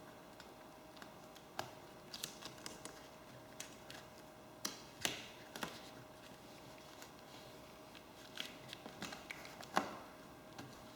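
Light handling noises of tape and cut pieces: scattered small clicks and rustles, with a few louder crinkles about five seconds in and near the end.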